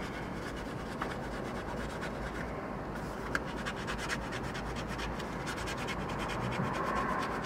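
A scratch-off lottery ticket being scratched off: steady, rapid scraping strokes across the card's coating.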